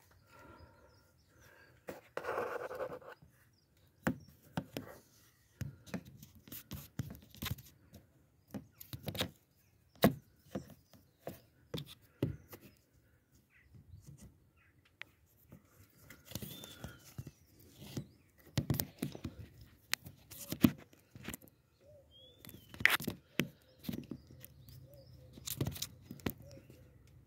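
Irregular metallic clicks and knocks from hands and tools working the fuel-line unions on a diesel engine's high-pressure fuel pump, with a short rustle about two seconds in. A bird chirps briefly twice in the background.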